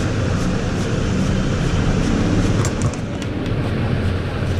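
Steady low rumbling background noise, with a few light clicks around the middle.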